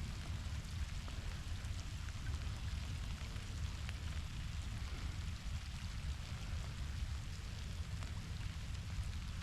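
Heavy rain falling steadily, an even hiss with scattered drops ticking, over a steady low rumble.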